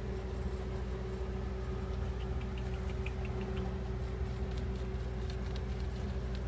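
A steady low mechanical hum, with faint light ticks and rustles from about two seconds in until near the end.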